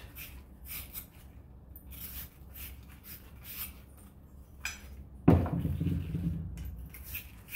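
Half-inch wire fitting brush scrubbing the inside of new brass plumbing fittings in short, quick scratchy strokes, cleaning them before soldering. About five seconds in there is a sudden louder knock, like a part or tool being handled on the wooden bench.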